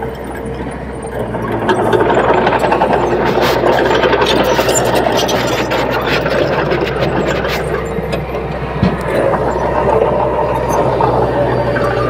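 Small crawler bulldozer's diesel engine running under load while pushing soil, with a steady low hum and scattered metallic clanks from the tracks. It grows louder about two seconds in.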